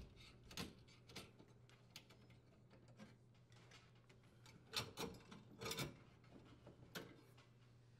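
Faint clicks and light taps of a dishwasher's power-cable strain relief and wires being handled against the sheet-metal junction box, over near silence with a low hum. The clicks come singly and a few close together a little past the middle.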